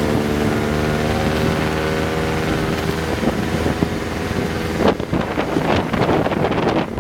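A motor engine runs at a steady pitch, then drops away about five seconds in. Wind buffeting the microphone and scattered knocks follow.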